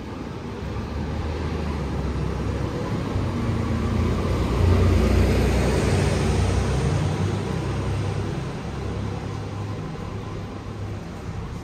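A heavy vehicle passing close by: its low engine rumble and road noise grow louder to a peak about five seconds in, then fade away.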